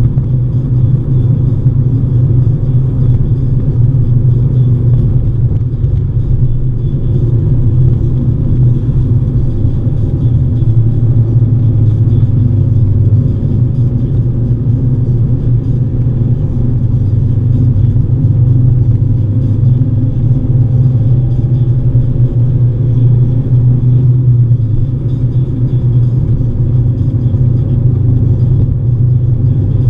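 Steady low rumble of a car on the move: engine and road noise heard from inside the cabin, with no breaks or sudden events.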